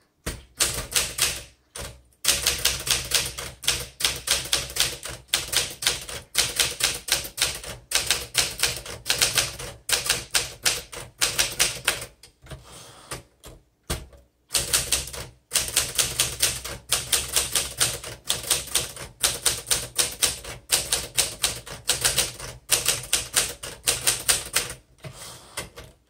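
Typing on a 1964 Smith Corona Classic manual portable typewriter: quick clattering keystrokes in runs, broken by short pauses. The machine types smoothly and is mechanically sound.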